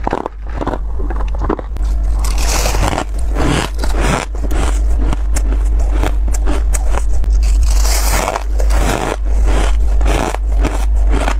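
Close-miked crunching and chewing of freezer frost: a dense run of crisp, crackly crunches, with a steady low rumble underneath.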